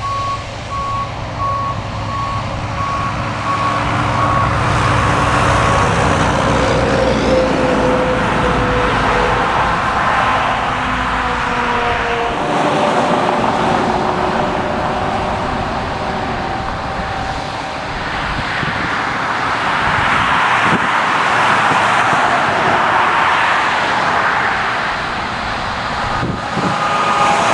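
Shuttlewagon SWX410 railcar mover running, its reversing alarm beeping for the first several seconds over a low engine rumble. Then a steady hiss and rumble of rail cars being moved, with several long squealing tones that slowly slide in pitch.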